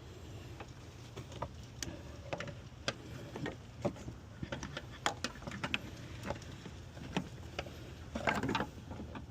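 Irregular clicks and light knocks of tools and parts being handled during clutch cylinder work, with a longer rattle about eight seconds in, over a steady low hum.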